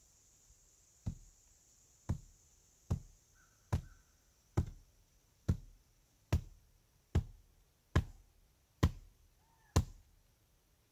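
A rock pounded repeatedly onto the top of a wooden post, driving it down into its post hole: eleven dull thuds, evenly spaced a little under a second apart.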